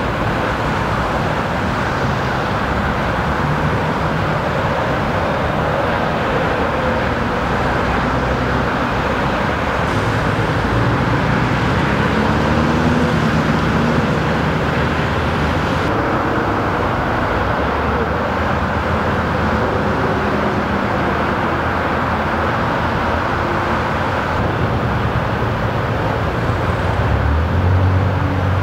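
Freeway traffic: a steady rush of cars and trucks passing, with engine hums that come and go. A deeper, stronger engine hum sets in near the end.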